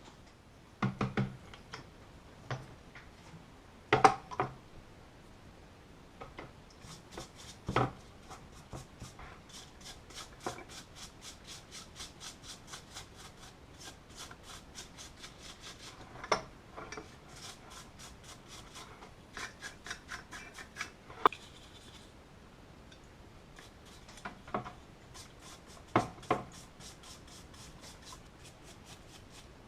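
Hand work on small metal blowtorch parts: scattered clinks and knocks, and a long run of quick, even scrubbing or rubbing strokes, about four a second, with a shorter run near the end.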